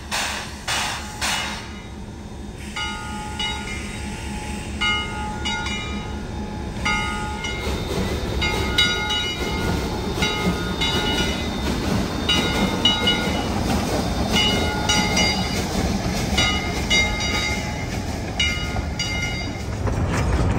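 Steam locomotive chuffing about twice a second for the first couple of seconds, then its bell ringing in repeated short strokes while the train moves off, with a low rolling rumble of the wheels and cars building from about eight seconds in.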